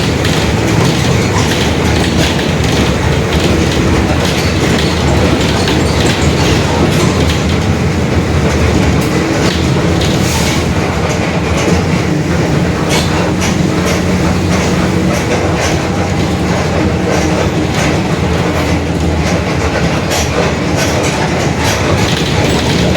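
Mercedes-Benz OF-1721 Bluetec 5 city bus under way: the diesel running steadily, with a constant clatter of rattles and knocks from the Marcopolo Torino S body. Under it is a low hum from the rear differential, growling as it does on this bus.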